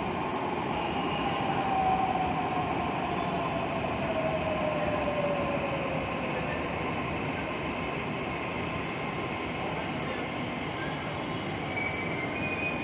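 Electric metro train pulling into the platform: steady running noise of wheels and equipment, with a motor whine that falls steadily in pitch over the first six seconds or so as the train slows to a stop.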